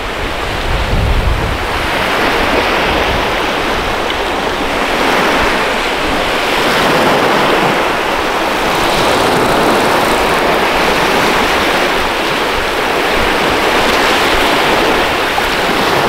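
Small waves breaking and washing up a sandy beach, a steady surf wash that swells and eases, with wind rumbling on the microphone in the first couple of seconds.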